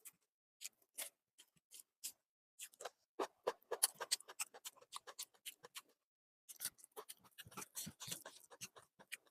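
Close-miked eating sounds: chewing and lip-smacking on chicken liver curry, in quick, irregular wet clicks, with a short pause about six seconds in.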